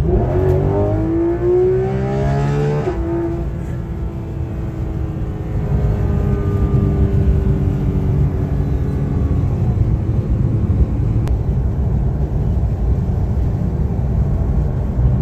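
2019 Porsche 911 GT3 RS's naturally aspirated 4.0-litre flat-six, heard from inside the cabin, rising steeply in pitch under hard acceleration for about three seconds. The pitch drops suddenly at a quick upshift, climbs again more gently, then settles into a steady drone over constant road rumble.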